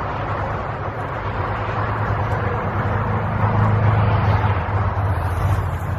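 Road traffic on a nearby highway: a steady hum of engines and tyres that swells a little about halfway through.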